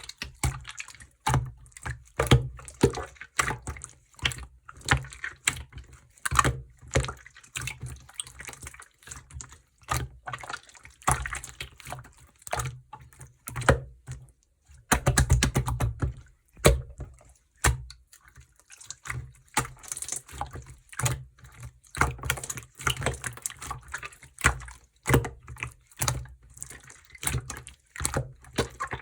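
Clear blue slime being squeezed and kneaded by hand, giving a steady series of wet clicks and squelching pops, one or two a second, with a quicker run of them about halfway through.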